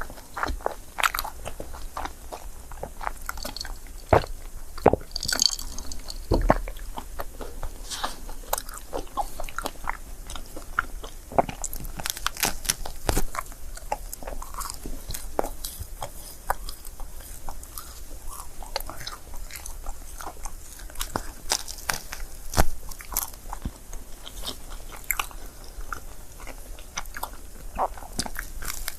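Close-miked eating of a crêpe: steady biting and chewing, with many sharp mouth clicks throughout.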